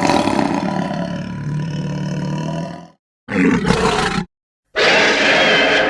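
Baragon monster roar sound effects: a loud roar of about three seconds that fades out, a shorter roar of about a second, and a third, harsher roar that starts about a second before the end.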